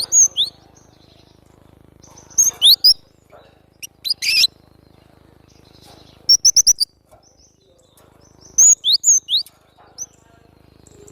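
Glatik batu (cinereous tit) singing loud and vigorously: short bursts of sharp, high, upward-slurred whistling notes, repeated in groups every two seconds or so, one group a rapid run of about five notes.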